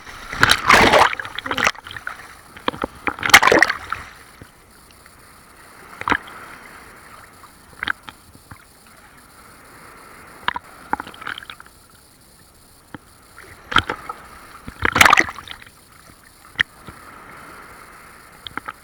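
Big sea waves breaking and splashing over bathers, with several loud, sudden splashes, the biggest about a second in, at about three and a half seconds and near fifteen seconds. A low steady rush of surf runs between them.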